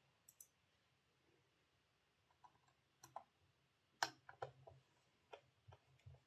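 Faint, scattered clicks and taps of the small plastic parts of a Hornby Class 142 Pacer OO gauge model being handled and slotted back together, with one sharper click about four seconds in.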